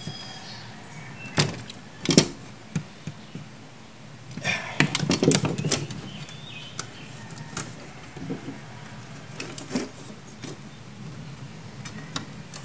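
Hands working a rope gasket into the seal groove of a steel ammo can lid: scattered sharp clicks and knocks on the metal, with a longer stretch of rustling and scraping about five seconds in.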